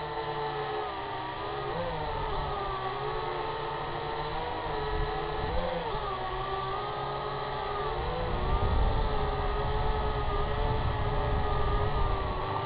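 Syma X8HG quadcopter's motors and propellers whining in flight, the pitch wavering up and down as the throttle changes. Wind rumbles on the microphone, louder from about eight seconds in.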